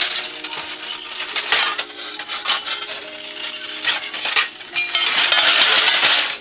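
Shards of broken thick glass clinking and rattling against each other as they are handled, with a denser, louder stretch of rattling near the end.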